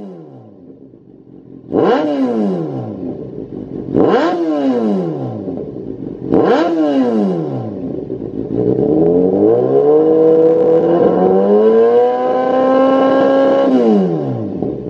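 Kawasaki Z800's inline-four engine revving through a Lextek XP13C aftermarket silencer. There are three quick throttle blips about two seconds apart, each rising sharply and falling back to idle. Then comes a longer rev that climbs, holds steady, steps up to a higher steady pitch for a few seconds and drops back to idle near the end.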